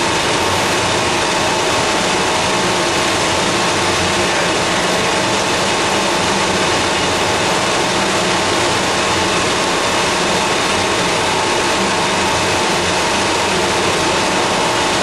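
Fourdrinier paper machine running: a loud, constant machinery noise with a couple of steady hum tones through it.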